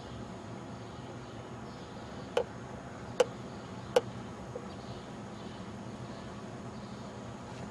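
Steady outdoor background hum, broken near the middle by three sharp knocks evenly spaced just under a second apart, then a fainter fourth.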